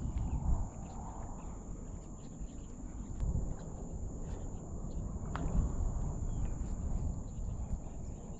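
Wind buffeting the microphone over open water, a fluctuating low rumble, with a steady thin high whine and a few light clicks.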